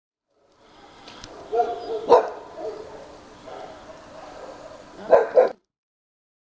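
A small dog barking several times, the loudest bark about two seconds in, then two sharp barks in quick succession near the end.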